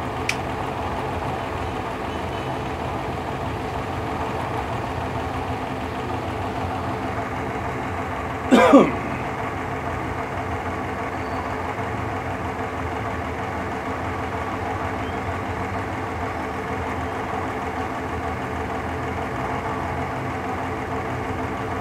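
Steady mechanical hum of running machinery, with a brief louder sound about eight and a half seconds in that falls in pitch.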